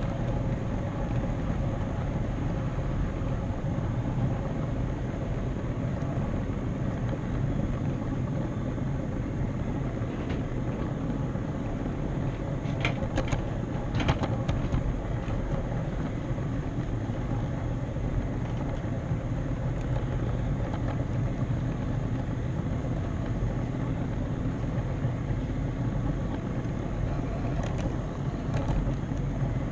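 HO-scale model camera train rolling steadily along the track, its wheels on the rails giving a constant rumble, with a few sharp clicks about halfway through as it crosses rail joints or a turnout.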